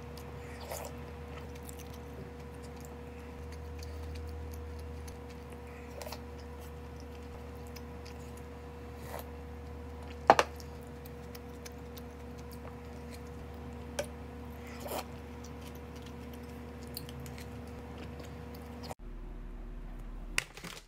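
Eating at a table: a wooden spoon clicking now and then against ceramic bowls, with faint chewing, over a steady room hum. One sharper clink stands out about ten seconds in.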